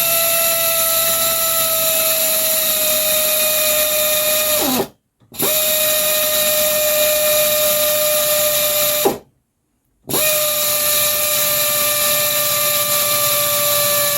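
Pneumatic air drill run three times, about four seconds each, with short stops between. Each run spins up and down quickly and holds a high, dentist's-drill-like whine that sags slightly in pitch over a strong hiss of exhaust air.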